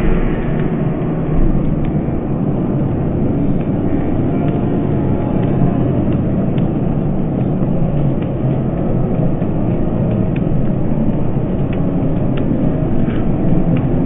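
Steady din of a large crowd in a bullring's stands and arena, heard through a phone microphone, with no single voice standing out.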